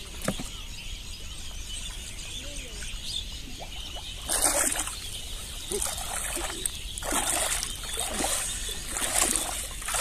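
A person wading through shallow muddy water, each stride splashing, about one splash a second, starting about four seconds in. Before that only a faint steady high hiss of background.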